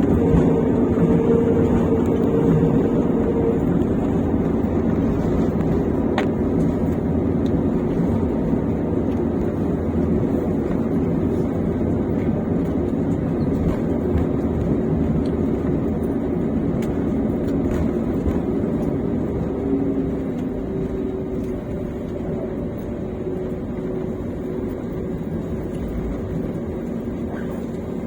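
Jet airliner's engine and airflow noise heard from inside the passenger cabin: a steady low rush with faint engine tones in it, easing slightly about two-thirds of the way through.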